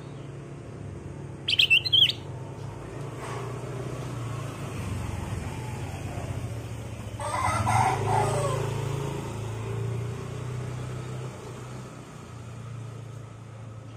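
A caged kutilang emas bulbul gives one short, loud, high call about a second and a half in. A steady low hum runs underneath, and a louder, broader sound swells and fades around the middle.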